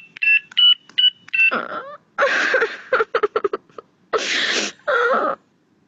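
Telephone keypad beeps: a quick run of short electronic tones as a number is dialled, followed by several longer hissy, crackling bursts.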